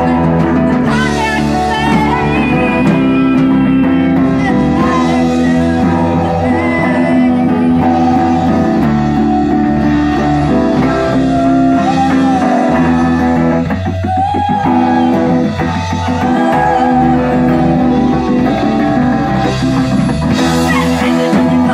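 Live rock band playing, led by an electric guitar, with a steady full band sound behind it.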